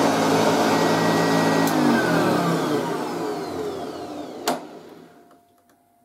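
1978 Hoover Junior Deluxe upright vacuum cleaner's 350-watt motor running with the famous Hoover growl. It is switched off a couple of seconds in, and its pitch falls as the motor runs down to quiet. There is a sharp click near the end.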